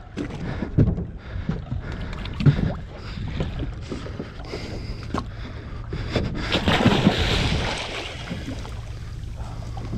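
Bluefin tuna thrashing and splashing at the surface right beside the boat, loudest from about six and a half to eight seconds in. Under it an idling boat engine hums steadily, with wind on the microphone and a few knocks earlier on.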